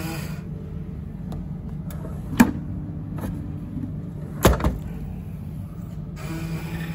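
Krystal F25 vending machine dispensing: over a steady low hum, a sharp click comes about two and a half seconds in, then a loud double thud about four and a half seconds in as the item drops into the delivery tray.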